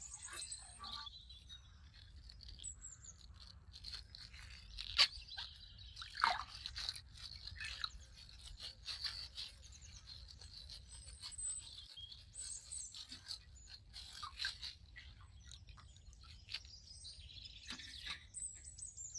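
Plastic ice-pack bag being torn and handled: irregular crinkling and crackling throughout, with birds chirping faintly in the background.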